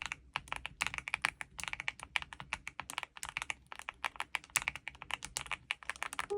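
Fast typing on a mechanical keyboard: a dense run of uneven key-press clicks, several a second.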